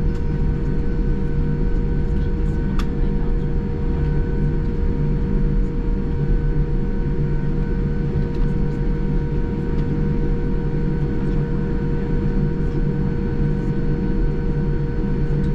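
Steady cabin noise inside an Air New Zealand Boeing 787-9 on the ground: a low rumble with a steady whine from the engines and cabin systems. There is a faint click about three seconds in.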